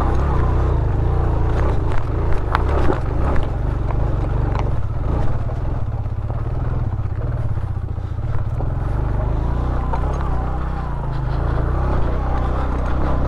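Motorcycle engine running steadily under way, with road and wind noise and a few sharp knocks or rattles about two to three seconds in.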